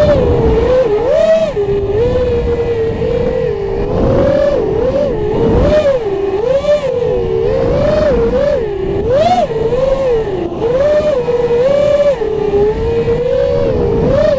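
FPV racing quadcopter's motors and propellers whining, the pitch swooping up and down about once a second as the throttle changes through tight slalom turns, with wind rushing over the onboard camera's microphone.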